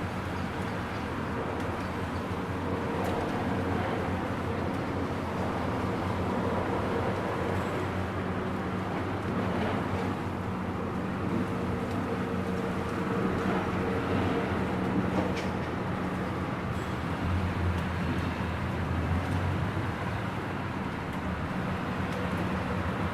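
Steady rain in a suburb, with a low, steady vehicle-like hum underneath and a few sharp ticks.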